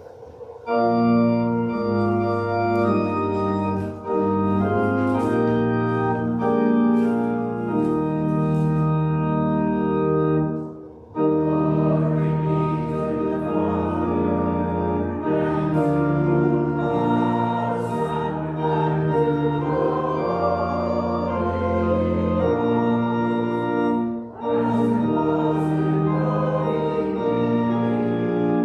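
Church organ playing long-held chords in phrases, with three short breaks between phrases.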